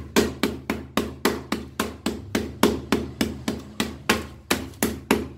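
A rolling pin beating a slab of hot jaggery and sesame through a plastic sheet on a wooden chopping board: quick, even knocks, about four to five a second, pressing the mixture together while it is still hot.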